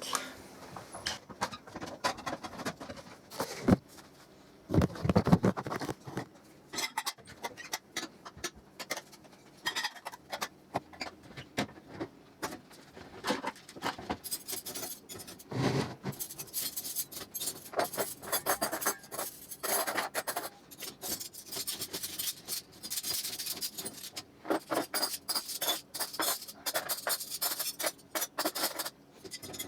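Dishes, glasses and cutlery clinking and clattering as they are handled and put away, in irregular bursts of short knocks that grow busier in the second half.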